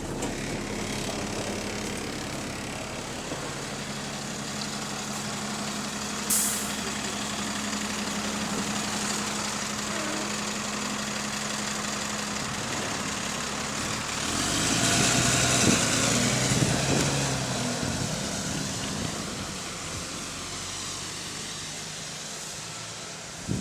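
Bus diesel engine running with a steady hum, heard from on board; a short sharp air hiss about six seconds in, then a louder rush of air and rattling from about the middle as the engine note changes.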